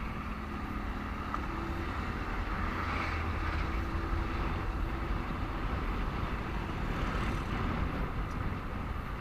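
Steady traffic noise heard from a moving motorcycle: low engine rumble and road noise, with a faint steady hum from a passing vehicle in the first half.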